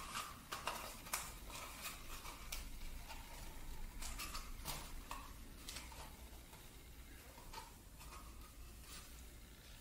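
Faint crinkling and small clicks of tape being pressed and folded down onto a cardboard toilet-paper tube by hand, with scattered sharp ticks, most of them in the first couple of seconds and again around the middle.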